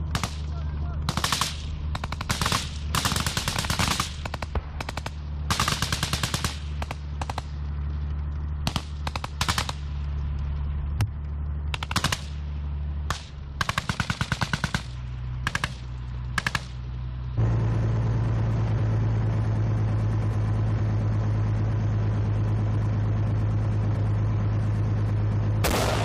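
Repeated short bursts of automatic machine-gun fire over a low engine rumble. About two-thirds of the way through, this cuts abruptly to a steady, loud engine drone.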